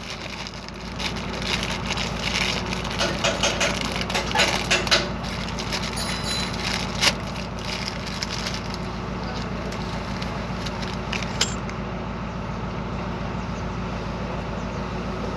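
Crinkling and rustling of the plastic wrapper being pulled off a new propeller-shaft cross joint (universal joint), heaviest in the first few seconds, with a couple of sharp clicks of the metal bearing caps being handled, over a steady low background hum.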